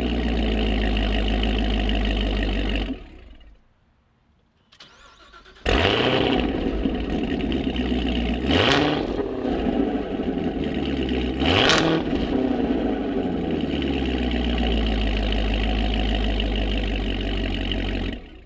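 Corvette ZR1's supercharged V8 idling, then shut off about three seconds in. It is restarted with a loud flare of revs about two seconds later, blipped twice, and settles into a steady rumbling idle until it cuts off near the end.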